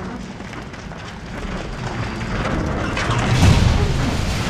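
Huge gasoline fire burning under a freeway overpass: a steady roaring of flames with crackling. It grows louder, with a deep rumbling swell about three and a half seconds in.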